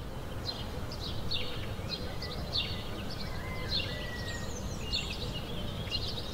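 Small birds chirping in short repeated calls, about one a second, over a steady low outdoor background rumble.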